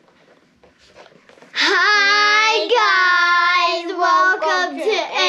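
Children singing the channel's intro jingle in long held notes, starting about a second and a half in after a faint rustle.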